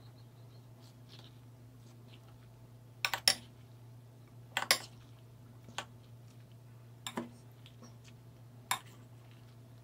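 A spoon clinking against a glass mixing bowl while stirring shrimp ceviche: quiet at first, then from about three seconds in some eight sharp clinks, mostly in quick pairs, as the spoon digs from the bottom of the bowl.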